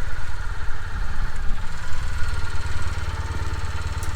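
Kawasaki W800's air-cooled parallel-twin engine running steadily with a low, even pulse.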